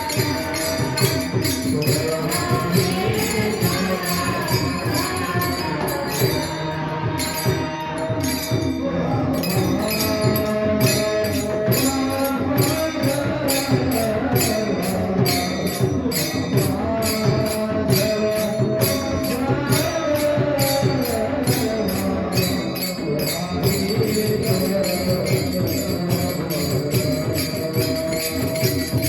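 Marathi kirtan singing of a devotional panchapadi, the melodic line gliding and held, over a steady beat of jingling hand cymbals.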